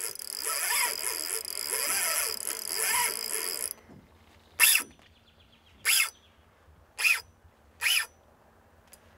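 A spinning reel's drag buzzing as a hooked fish pulls line off against it: one long run for the first three and a half seconds, then four short bursts about a second apart.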